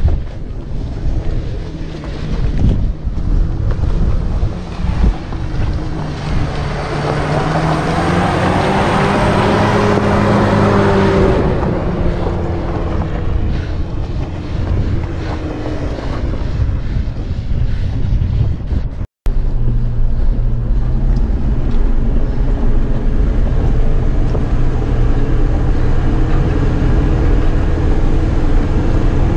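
Off-road SUV's diesel engine labouring up a rocky slope, revving up and falling back, with wind on the microphone. After a cut about two-thirds of the way in, a steady, lower engine drone is heard from inside the cabin.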